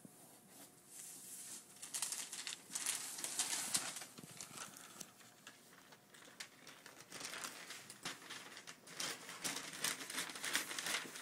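Large sheet of paper pattern paper rustling and crinkling as it is lifted and handled, in uneven bursts that grow louder about two seconds in and again in the second half.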